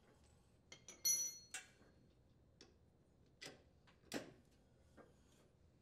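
Wrench and socket clinking against a steel nut and bolt on a riding mower's steering link: several scattered light clicks, the loudest about a second in with a brief metallic ring.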